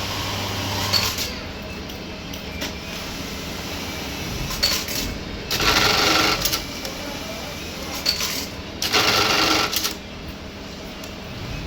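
Industrial button sewing machine running two short stitch cycles of about a second each, the second a few seconds after the first, with sharp mechanical clicks in between.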